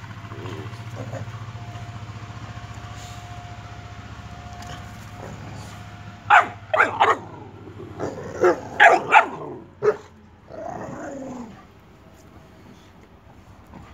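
Boxer dog play-barking: about eight sharp barks in a quick run starting about six seconds in, followed by a short growl.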